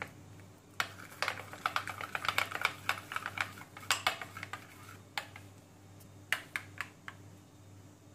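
Metal spoon clicking and scraping against the sides of a bowl as thick yogurt is stirred with powdered sugar: quick, irregular clicks, thinning out after about five seconds.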